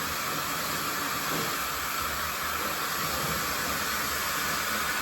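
Tensky hand-held hair dryer running steadily, a constant rush of blown air.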